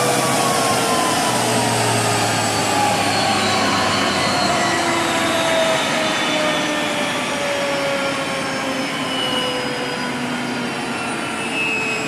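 F-16 jet engine running on the ground: a loud steady rushing hiss with several whining tones that slowly fall in pitch.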